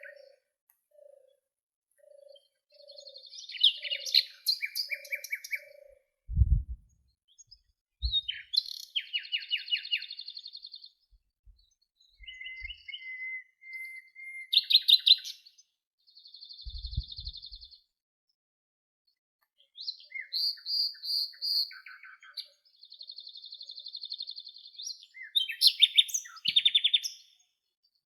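Songbirds singing in separate phrases of fast trills and repeated chirps, with short pauses between phrases. A low note repeats about twice a second in the first few seconds, and two brief low thumps come about six and seventeen seconds in.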